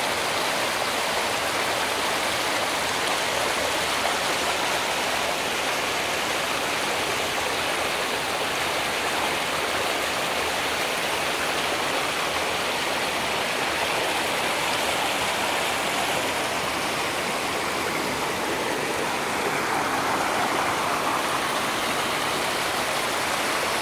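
Shallow mountain stream rushing over rocks: a steady rush of running water, a little fuller about twenty seconds in.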